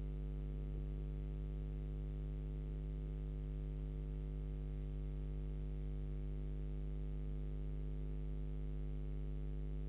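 Steady electrical mains hum: a low drone with a buzz of even overtones, unchanging throughout.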